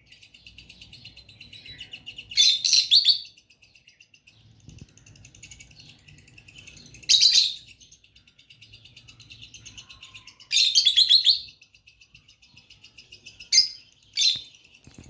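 Two pet lovebirds chirping: a steady soft, rapid twittering chatter with loud, shrill chirp bursts every few seconds, five in all.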